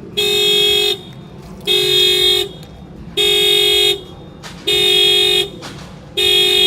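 Honda Accord's horn sounding in a regular series of blasts, each under a second long and about one every one and a half seconds, as the factory alarm goes off. The alarm has been triggered by an impact on the keyhole picked up by an add-on shock sensor.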